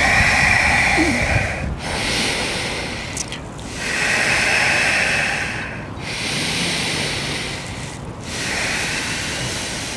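Slow, deep, audible breathing held in downward-facing dog: five long breaths in and out, each lasting one to two seconds, with short pauses between them.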